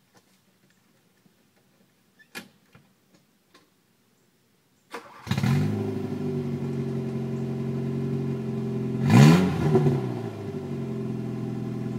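A few light clicks and a car door shutting, then the 1984 VW Scirocco's 1.8-litre eight-valve four-cylinder cranks briefly and starts about five seconds in, idling loudly through an exhaust with no muffler. About halfway through the idle it gets one quick rev, rising and falling, before settling back to idle.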